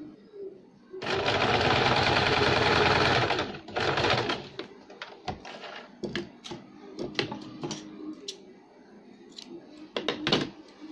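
Electric sewing machine running in a fast burst of about two and a half seconds, starting about a second in, with a shorter spurt just after, as it stitches a folded fabric hem. After that come light clicks and rustling as the cloth and thread are handled at the machine.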